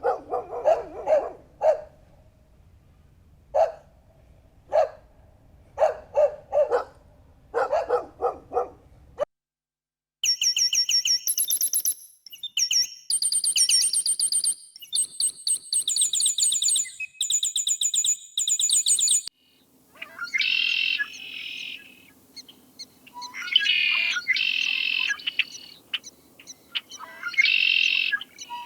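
Three animal sounds in turn. First, short repeated bark-like calls, some in quick runs, until about nine seconds in. Then a bird's high, rapid twittering chirps for about nine seconds, followed by harsher bird calls in three or four spaced bouts.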